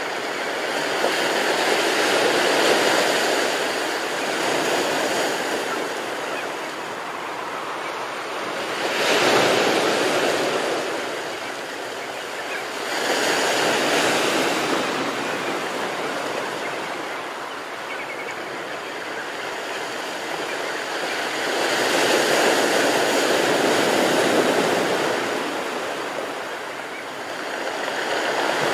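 Ocean surf washing onto the shore: a steady rushing noise that swells louder every few seconds as waves break and then eases off.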